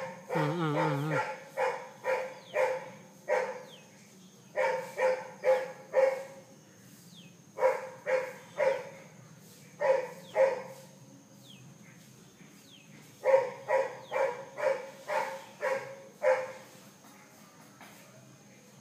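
A dog barking off and on, in quick runs of two to eight barks separated by pauses of a few seconds.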